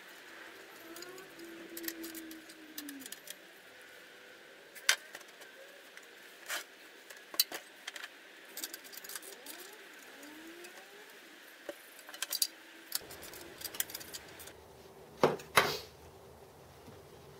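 Hand tools and metal parts clinking and knocking as the motor mount of a home-built Gingery milling machine is adjusted: scattered sharp metallic clicks, with two louder knocks near the end.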